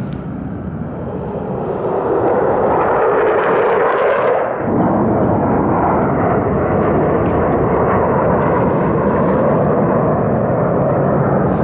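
Roar of a formation of jet fighters flying past overhead trailing smoke, a steady rushing rumble that swells over the first two seconds.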